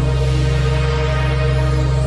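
Background music with sustained, held tones over a steady low bass.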